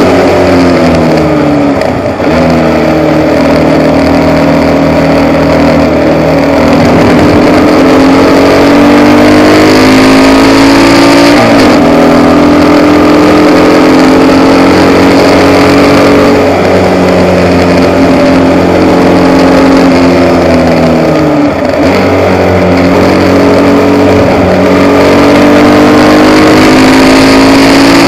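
Formula Vee race car's air-cooled Volkswagen flat-four engine heard onboard, running at racing speed with the revs climbing and falling through the gears and corners. The revs drop sharply about two, eleven and twenty-one seconds in.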